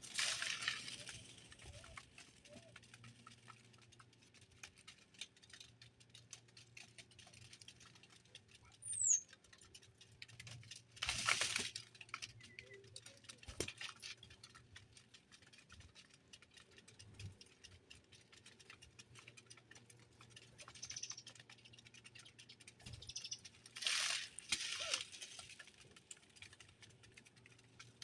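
Small birds moving about, making a light pattering of ticks and a few louder rustling flurries, with one short high falling chirp about nine seconds in.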